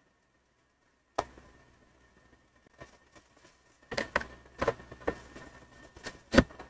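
A single sharp click, then a cluster of clicks and knocks with the loudest near the end: a USB flash drive being pulled out of a computer's port and plugged back in, with handling of the machine.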